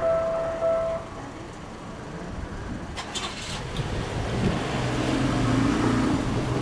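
Railway level-crossing alarm ringing its repeating electronic tone, cutting off about a second in once the train has cleared. A brief rattle follows, then a road vehicle's engine grows louder as it drives up to and over the crossing.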